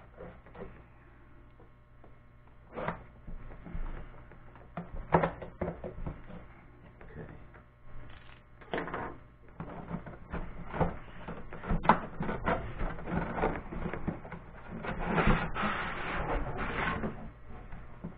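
Cardboard box being opened by hand: tape slit with a cutter, then irregular scrapes, knocks and rustles as the snug lid is worked loose, with a longer stretch of cardboard sliding near the end as the lid comes off.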